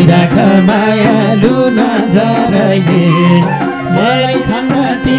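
Nepali folk dohori music playing between sung verses: madal drums keep a steady beat under a gliding melody from harmonium and other melody instruments.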